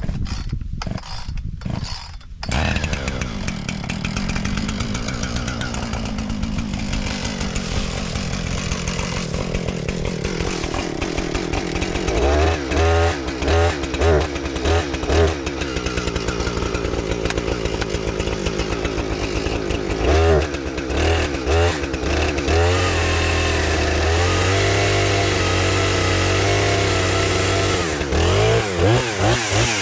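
Husqvarna Rancher 455 two-stroke chainsaw starting up about two seconds in and then idling. It is blipped in several short bursts of throttle, with a longer stretch at higher speed later on.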